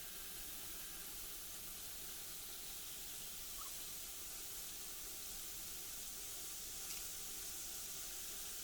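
Steady hiss of background noise, with a faint short chirp about three and a half seconds in and a faint click near seven seconds.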